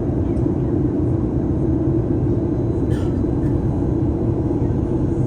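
Steady, even cabin drone of a Boeing 737 airliner in flight: engine and airflow noise heard from inside the passenger cabin.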